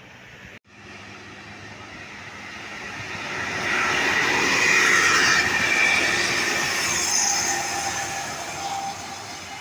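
A heavy vehicle passing close by: a rushing noise that swells to a peak about five seconds in and then fades, with thin high tones near the end of the peak.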